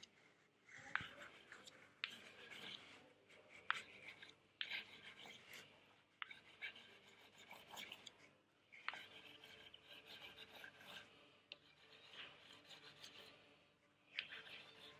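A dry drawing stick scratching and rubbing across a large sheet on a wall in quick scribbling strokes. The strokes come in runs of a second or two with short pauses between them, and there are a few sharp taps where the stick meets the surface.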